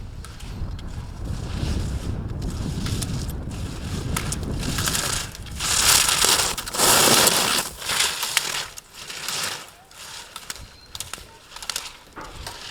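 Ski edges scraping on hard-packed snow as a racer passes. Two loud hissing scrapes come about six and seven seconds in, after a low rumbling start, with scattered clicks afterwards.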